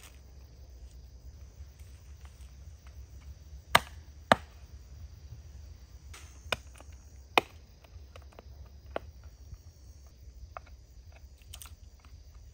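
A knife and cleaver knocking against a wooden cutting board while jointing a whole raw chicken: about five sharp, separate chops, the two loudest close together about four seconds in and the rest scattered over the next five seconds.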